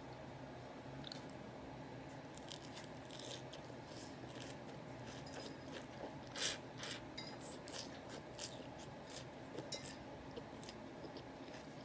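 Quiet eating sounds: light clicks and scrapes of cutlery on a plate, with chewing. The sharpest click comes about six and a half seconds in.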